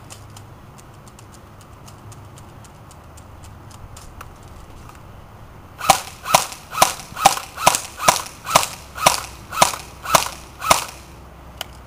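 Faint, rapid ratcheting clicks of a high-capacity airsoft magazine being wound, then a Classic Army MP5A2 electric airsoft gun firing about a dozen single semi-automatic shots, roughly two a second.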